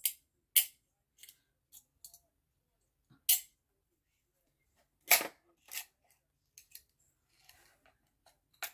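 Plastic magnetic pin caddy being handled: about a dozen sharp, irregular clicks and clacks as pins and plastic parts knock together, the loudest just after five seconds in.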